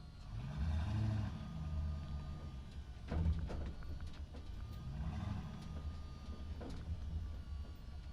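A motor running steadily, its pitch rising and falling twice, with a few sharp clicks.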